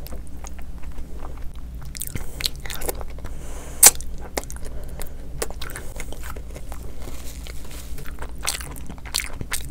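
A person chewing and biting into fried food, with wet mouth sounds and a run of small crunches. One sharp crunch stands out just before four seconds in.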